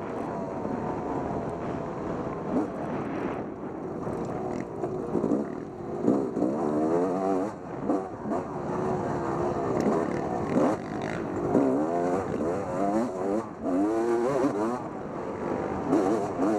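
Off-road dirt bike engine revving up and falling off again and again under changing throttle, as on a race trail.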